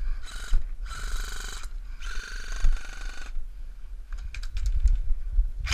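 Airsoft rifle firing three full-auto bursts, each a fast mechanical rattle: a short one, then two longer ones, followed by a few faint clicks.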